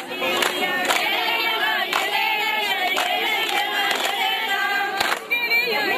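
A group of women singing together in chorus, with sharp claps about once a second keeping time.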